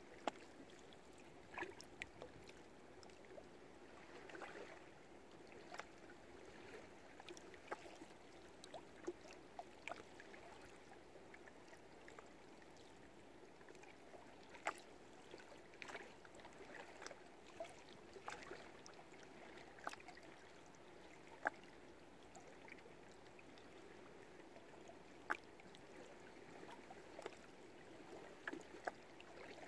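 Faint water lapping against moored boats, with irregular sharp ticks and knocks scattered through it.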